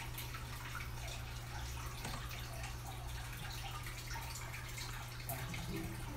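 Steady hiss with a low hum: room noise.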